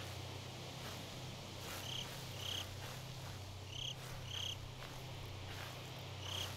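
Faint outdoor ambience over a low steady hum, with short high chirps from an animal coming in pairs, three times.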